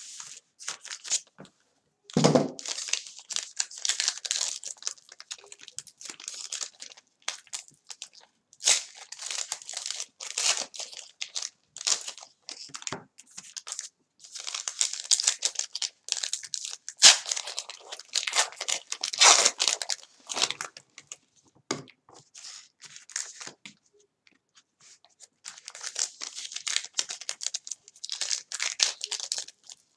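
Trading-card pack wrappers being torn open and crinkled by hand, in irregular bursts of tearing and crackling with short pauses between.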